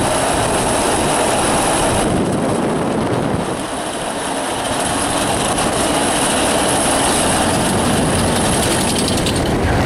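Mack mine-train roller coaster rolling over the crest of its lift hill and into a curve: a steady, loud rumble and rush from the train on its steel track, easing slightly for a moment midway.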